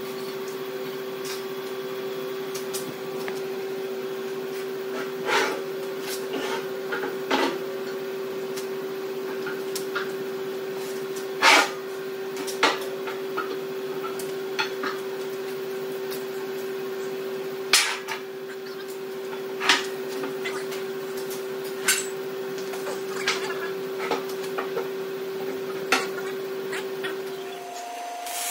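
Sharp metal clanks and knocks every few seconds as a steel line-boring bar and its bearing mounts are handled and fitted through an excavator link's bore, over a steady background hum that cuts off near the end.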